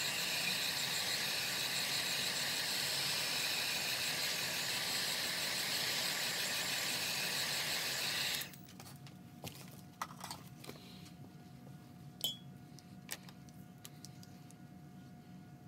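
Craft heat gun blowing steadily as it dries wet paint, switched off suddenly about eight and a half seconds in. A few light clicks and taps follow.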